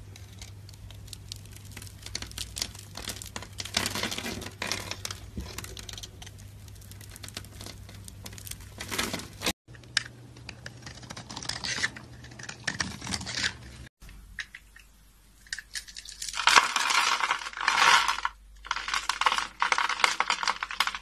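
Blades cutting into bars of soap, including a Lux bar: dense crisp crackling and scraping as the knife scores and slices the soap, with scored soap cubes breaking apart. The sound drops out abruptly twice, about ten and fourteen seconds in, and the crackling is loudest a few seconds before the end.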